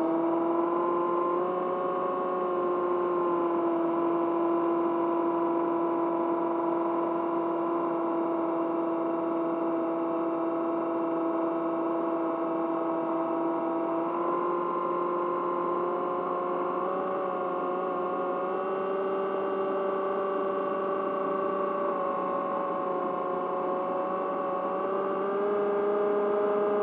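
Electric motor and propeller of an AR-900 RC flying wing in flight, heard from the onboard camera: a steady whine that shifts pitch slightly with throttle, a small step about halfway through and a rise near the end.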